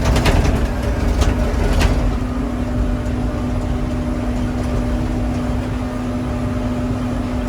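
John Deere 750C crawler dozer's diesel engine running steadily under way, with a constant hum over a low rumble. A few sharp cracks sound in the first two seconds.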